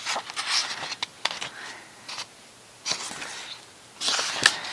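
Pages of a glossy collector's book being turned and handled, paper rustling in a few short bursts.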